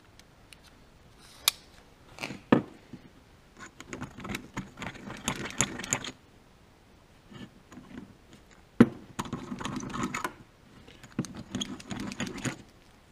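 A hand deburring tool's blade scraping around the edges of freshly enlarged holes in a metal flange, removing the burrs. It comes in three spells of short, rapid scraping strokes, with a few sharp clicks and knocks as the tool and part are handled, the loudest about nine seconds in.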